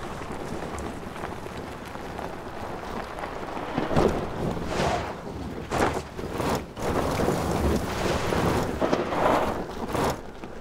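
Tyres of a Rivian R1T electric pickup crunching over rock and loose stones at crawling speed, in several louder surges from about four seconds in, over a steady rush of wind-like noise.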